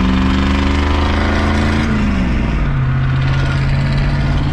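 Naturally aspirated 7.3-litre diesel V8 of a Ford F-250 pulling in gear. The engine note climbs slowly, drops sharply about two seconds in at a shift of the five-speed manual, then holds steady at a lower pitch, over road noise.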